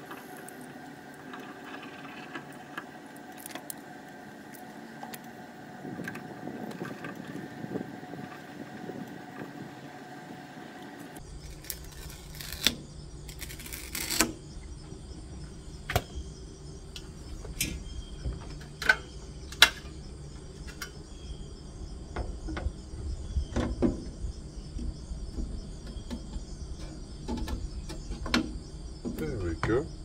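Scattered clicks and taps of a plastic window bird feeder being handled and hung on its suction-cup mounts on the glass, over a faint steady background.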